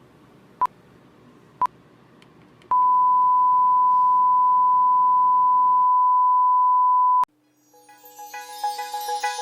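Electronic beep tone: short beeps about a second apart, then one long steady beep of the same pitch lasting about four and a half seconds that cuts off suddenly. Music begins near the end.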